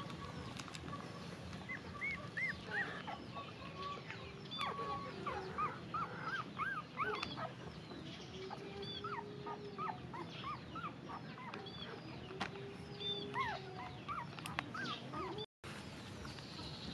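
Many short, arching chirps and squeaks, with a few longer, lower calls in between, over a steady background hum of animal and yard noise.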